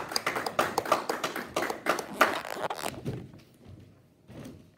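Scattered hand clapping from a few people that stops about three seconds in, followed by a few soft footsteps on the stage riser.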